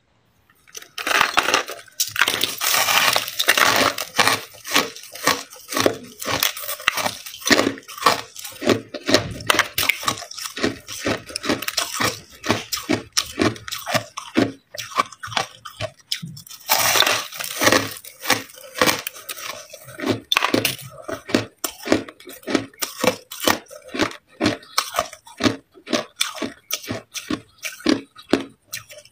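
Crushed white ice being bitten and chewed: a long dense crunching about a second in, then a steady run of short sharp crunches several a second, with another long dense crunch a little past halfway.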